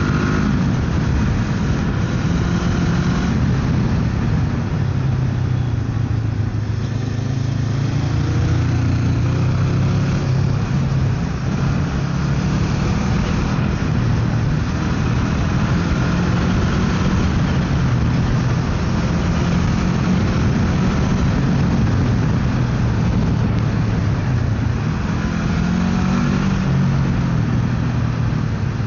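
Motorcycle engine running under way at a steady cruise, its pitch rising and falling a little with the throttle, under a constant rush of wind noise.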